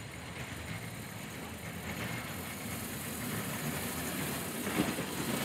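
A small narrow-gauge rail vehicle's engine running as it moves slowly past, growing gradually louder.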